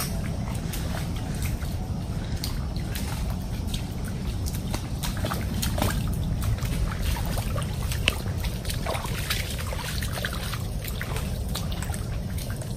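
Footsteps squelching and splashing through a shallow trickle of water and soft mangrove mud, with many small irregular clicks and splashes over a steady low rumble.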